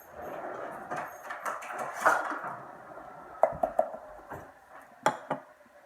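Barbecue sauce being poured from its bottle into a Tupperware microwave pressure cooker, an irregular wet pouring noise, followed by sharp knocks and clatters against the cooker in a quick cluster about three and a half seconds in and again twice about five seconds in.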